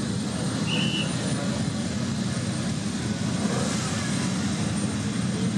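Ferrari 250 GTO's three-litre V12 idling steadily, with no revving.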